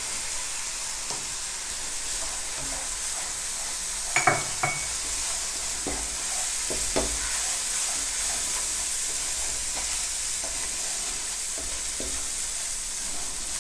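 Garlic paste frying in oil with onions and spices in a pan, sizzling steadily while a spoon stirs it, knocking against the pan a few times, most sharply about four seconds and seven seconds in.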